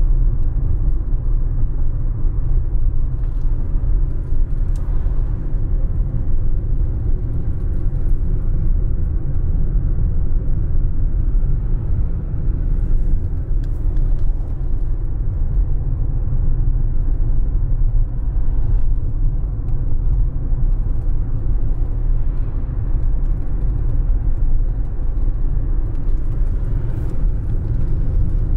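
Car driving on a wet road: a steady low rumble of engine and tyres, with a few faint ticks.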